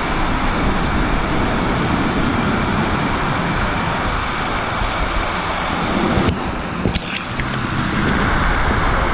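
Waterfall pouring and splashing into a pool close by: a loud, steady rush of falling water, broken by a sudden change about six seconds in before the rush carries on.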